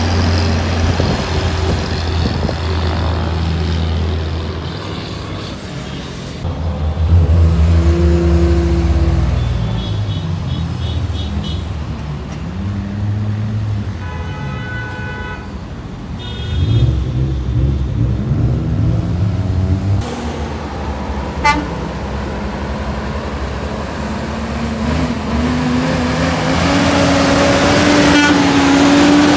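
Heavy semi trucks' diesel engines running, with a vehicle horn tooting about halfway through. Near the end an engine rises steadily in pitch as a truck accelerates.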